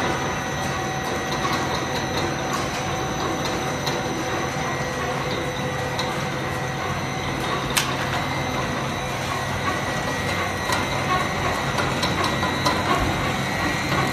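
Corn-chip production line machinery running steadily: motors and the extruder and roller-cutter give a constant mechanical din with a steady high whine over a low hum. Light ticks scattered through it, with one sharper click about eight seconds in.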